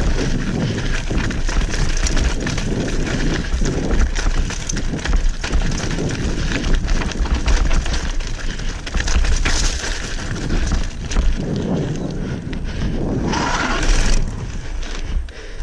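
Mountain bike ridden fast downhill over a rough dirt trail: tyres rumbling and crunching over the ground while the chain and frame rattle continuously. About two seconds before the end comes a louder, harsher burst.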